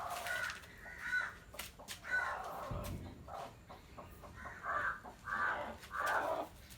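A chicken squawking in short repeated calls, with three coming about two-thirds of a second apart near the end.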